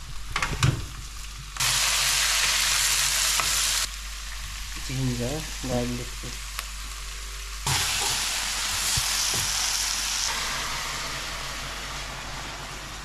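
Vegetables frying in hot oil in a pan, a steady sizzle. The sizzle jumps up suddenly about a second and a half in, drops back about four seconds in, then jumps up again nearly eight seconds in and slowly fades.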